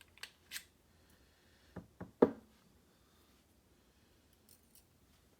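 Small metal clicks and ticks of tweezers and lock parts as a spring is pulled from a lock's pin chamber. One sharper tap with a short ring comes about two seconds in, then only a couple of faint ticks.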